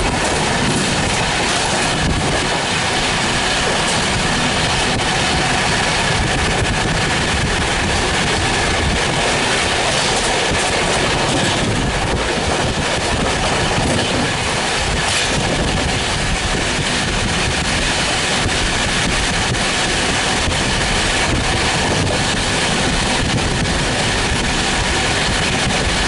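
A train running at speed, heard from on board. Wheel-on-rail noise makes a steady, loud rush with rail clatter through it.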